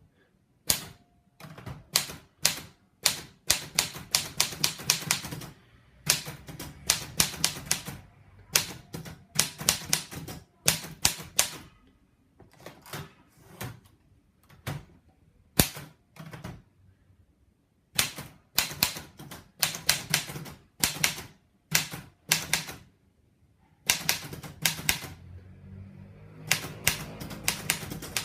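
Erika portable typewriter being typed on: sharp key strikes in runs of several a second, with short pauses between runs.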